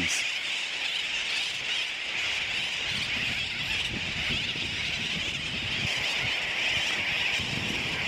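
Din of a dense tropical seabird colony, sooty terns among them: many birds calling at once in a steady, unbroken high-pitched chorus.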